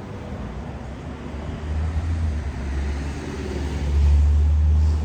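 Low rumble of road traffic, swelling as a vehicle passes and loudest near the end.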